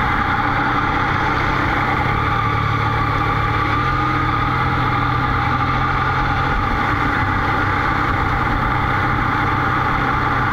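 Motorcycle engine running steadily at low road speed, with road and wind noise. The engine hum eases off about two-thirds of the way through.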